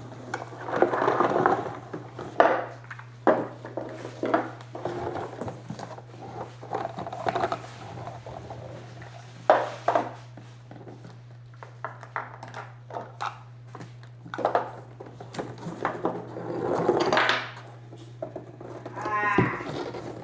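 Hands unpacking a handheld steam cleaner's parts: plastic packaging rustling and crinkling, with parts and attachments clicking and knocking against each other and the table. A steady low hum runs underneath, and a short rasp comes near the end.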